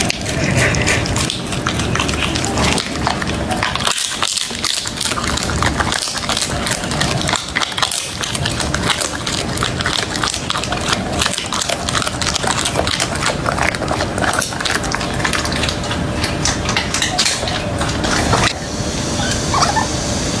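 Chocolate Labrador chewing and crunching grilled shark fillet, a dense run of wet, crackling chewing clicks, with licking and nosing at the plate. About two seconds before the end the sound changes as the dog takes up a ripe bitter melon.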